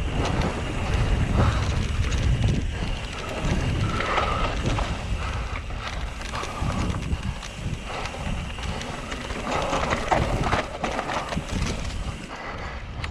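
Mountain bike riding fast down a dirt trail: wind buffets the camera microphone over the tyres rolling on dirt, with frequent short knocks and rattles as the bike goes over bumps.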